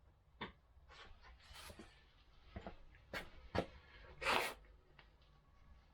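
Workshop handling noises: a few light clicks and knocks of small metal parts being handled, and a brief rubbing noise about four seconds in, typical of cleaning greasy parts.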